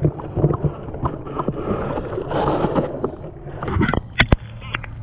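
Water sloshing and gurgling around a camera on a string as it is moved through shallow pond water and pulled out, with many knocks and handling noises and a few sharp clicks about four seconds in.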